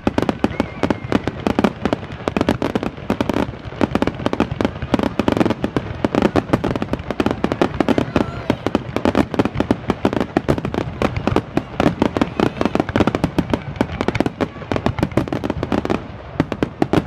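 Fireworks finale barrage: a dense, unbroken run of sharp bangs and crackling, many reports a second.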